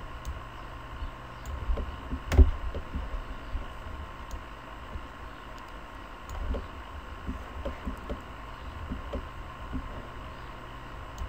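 Scattered computer mouse clicks and low desk thumps over a steady electrical hum and hiss, with one sharper knock about two and a half seconds in.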